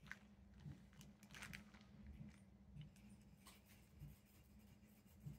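Near silence: room tone with a low hum and a few faint, scattered soft rustles and ticks.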